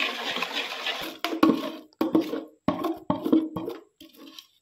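Wet sloshing of homemade soap batter (waste flour, oil and caustic soda) being stirred in an aluminium pot. A dense wash of sound comes first, then short irregular scraping strokes that fade out near the end.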